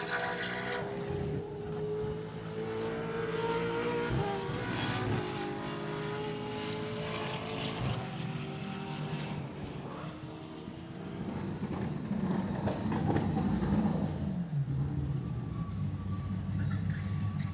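V8 Supercars race cars running at a distance, their engine note rising and falling in pitch. From about two-thirds of the way in, a car's V8 runs low and steady close by, as in pit lane.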